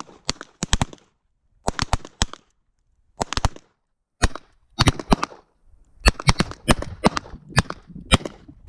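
Revolver shots on a firing line: many sharp cracks in irregular clusters, with brief silent gaps between. There are more shots than one six-shot revolver holds, so more than one gun is firing at once.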